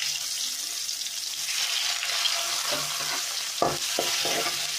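Chopped onions sizzling in hot oil with mustard seeds in a wide metal kadai, stirred with a spatula. A few clinks of the spatula against the pan come in the second half.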